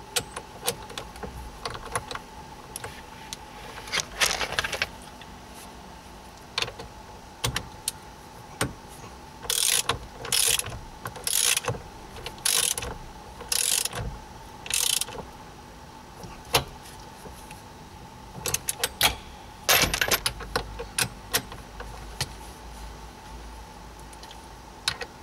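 Socket ratchet wrench clicking in short runs, tightening the steering wheel retaining nut, with scattered knocks of the tool between strokes. In the middle come six strokes of ratcheting, about one a second.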